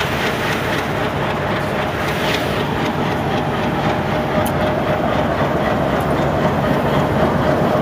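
Diesel-electric locomotive rolling slowly past at close range, its engine running over the steady rumble of wheels on the rails.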